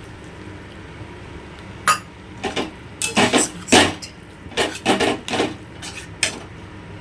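A spoon clattering and scraping against a cooking pan, about a dozen irregular knocks starting about two seconds in, as chicken stock is added to the chicken masala and stirred.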